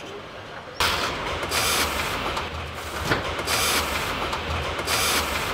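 Assembly-line machinery noise: a steady heavy rumble with hissing surges that swell and fade roughly every second and a half, starting suddenly about a second in.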